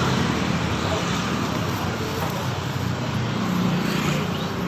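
Steady road traffic noise, a low hum of passing vehicles.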